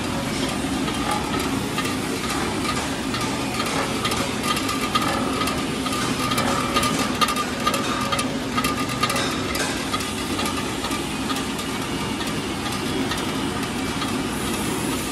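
Small screw-type oil expeller running steadily under load, its electric motor and belt-driven pressing screw making a constant hum. A scatter of small clicks and crackles runs through it, thickest in the middle.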